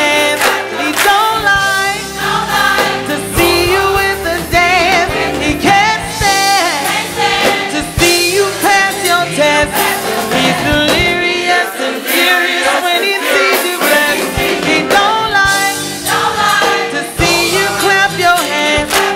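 Gospel song: a choir singing with vibrato over instrumental backing, the bass dropping out briefly in the middle.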